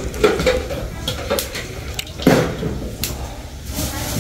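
A few sharp knocks and bumps of bowls and kitchenware being handled, the loudest a thump a little over two seconds in.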